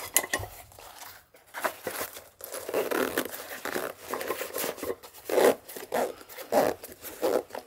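Padded fabric Sierra-cup case being handled and zipped shut around stacked metal cups: rustling cloth and a series of short zipper rasps, coming faster near the end.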